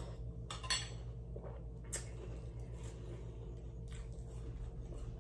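Spoon clinking against a cereal bowl a few times, short separate clicks over a steady low hum.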